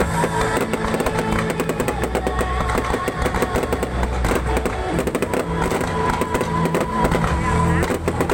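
Music playing, with a steady bass and held notes, under a constant crackle and popping of fireworks going off.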